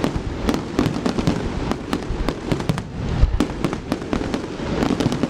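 Fireworks going off in quick succession: a dense, continuous run of crackles and bangs.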